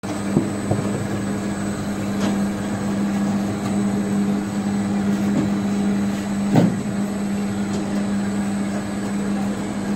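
Cow dung dewatering screw press and cow dung log-making extruder running together: a steady machine hum with a strong low tone. A few short knocks sound over it, the loudest about two-thirds of the way through.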